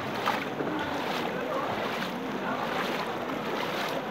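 Floodwater sloshing and splashing around legs wading through knee-deep water, in a rhythm of a splash every second or so.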